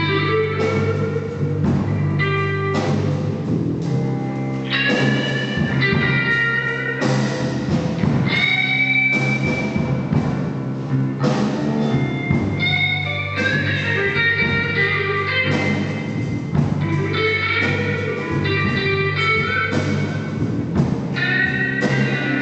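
Blues band playing: guitar lines over a steady bass and a drum kit.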